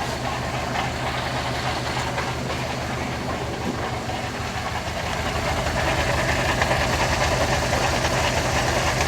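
Subaru Legacy GT's turbocharged flat-four running with a fast, even pulsing noise from the middle of the car, which the owner takes for a failing 5-speed manual transmission. The sound grows louder about halfway through.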